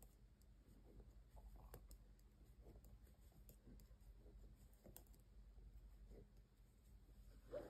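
Faint, irregular clicks of metal knitting needle tips as stitches are knitted, over near-silent room tone.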